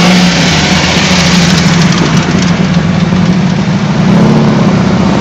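Classic car engines running at low speed as a C1 Chevrolet Corvette and then a 1955 Chevrolet pass close by, a steady engine note that swells briefly near the end.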